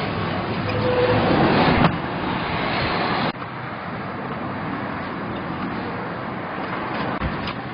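Mechron 2450 utility vehicle running, a dense mechanical noise that steps down about two seconds in and drops sharply after about three seconds, leaving a quieter steady running sound.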